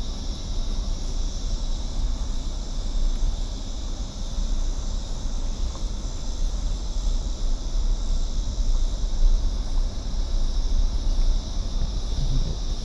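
A steady low rumble under a constant high-pitched insect drone.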